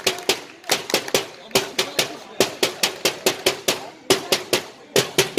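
Football supporters clapping in a steady chant rhythm close to the microphone, several sharp claps a second in repeating groups, with voices chanting underneath.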